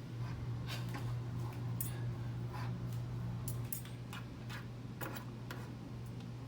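Light, irregular clicks and scrapes of two forks against a dish as cooked chicken is shredded, over a steady low hum.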